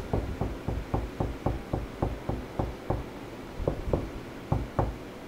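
Knuckles rapping on drywall in a quick, even series of knocks, about four a second, with a brief pause a little after three seconds. This is knock-testing for a wall stud: a higher, solid knock means a stud behind the wall, a lower, hollow one means an empty cavity.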